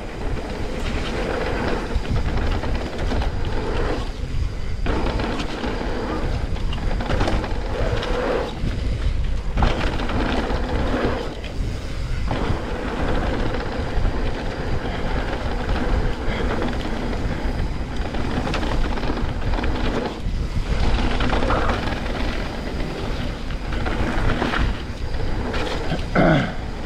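Mountain bike riding down a wet dirt trail: tyres rolling over the ground and the bike rattling over bumps, with a steady low rumble of wind on the camera microphone.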